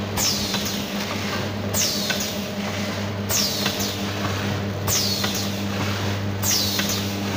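Collar-type cup-filler pouch packing machine running: a steady low hum with a sharp hissing stroke repeating evenly about every second and a half, one per pouch-making cycle.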